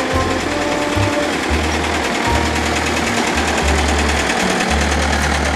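Small narrow-gauge diesel locomotive running past close by, its engine a fast, steady clatter. Music plays underneath.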